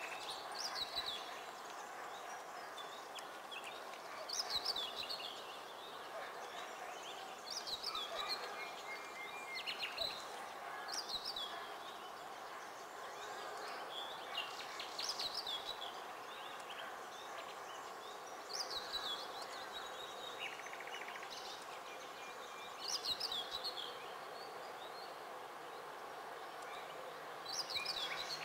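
A songbird singing short, falling phrases, repeated roughly every three to four seconds, over a steady faint background hum.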